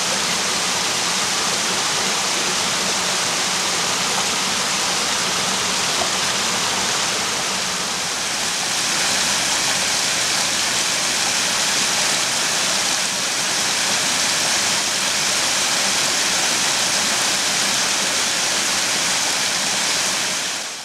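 Stream water splashing steadily over small cascades on flat rock ledges, the rush changing slightly about eight seconds in, then fading out at the very end.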